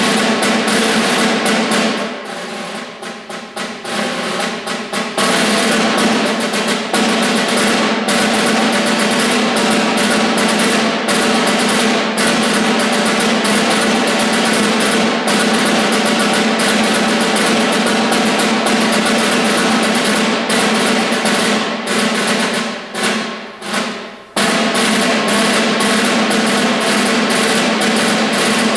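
Concert snare drum played solo with sticks: loud, dense rolls and rapid strokes, dropping to a softer passage a few seconds in. Near the end it fades away, then comes back suddenly loud.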